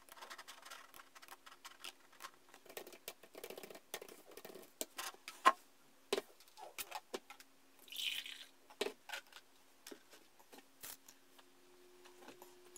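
Faint, scattered clicks and light taps of desk work: a computer mouse being clicked and a mug being handled on the desk, over a faint steady hum. A brief rustle about eight seconds in.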